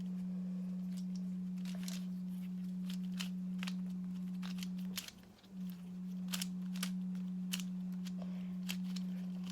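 Quick plastic clicks of a Pyraminx puzzle being turned, over a steady low hum that cuts out briefly about halfway through.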